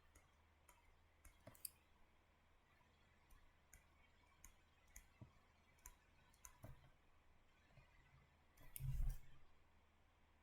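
Faint, irregular clicks of a stylus tapping on a tablet while a structure is drawn, with a louder dull thump about nine seconds in.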